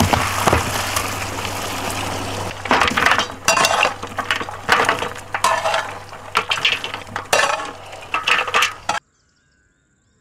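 Boiled goat trotters and their broth poured from one aluminium pot into another: a steady rush of pouring liquid for the first couple of seconds, then repeated clattering and clinking as the bones slide and knock against the metal pots. The sound stops abruptly near the end.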